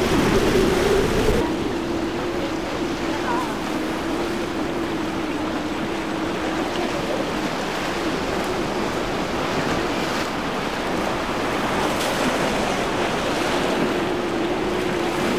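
Triple outboard motors running at speed, a steady drone under the wash of waves and spray breaking around the hull. The sound drops in loudness about a second and a half in; after that the outboards are the Everglades' triple Mercury 400 hp.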